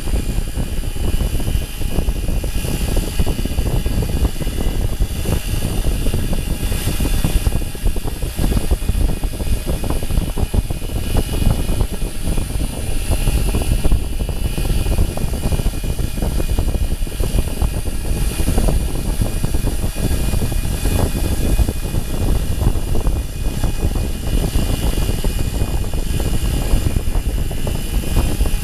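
Sieg KX3 CNC milling machine cutting an aluminium part with a small end mill: steady spindle motor whine with several high tones over a dense low rumble, running without pause as the cut goes on.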